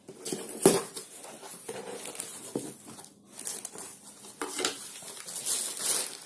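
Cardboard speaker box being opened and its packaging handled: rustling and scraping with scattered clicks and one sharp knock about a second in.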